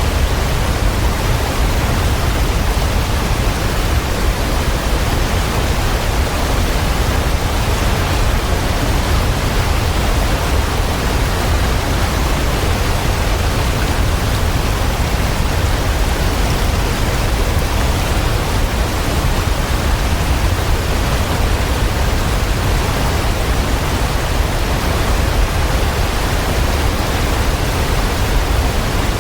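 Waterfall: water falling in a steady, unbroken rush, with a heavy low rumble.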